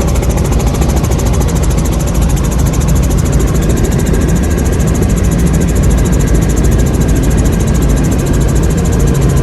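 Helicopter engine and rotors running steadily.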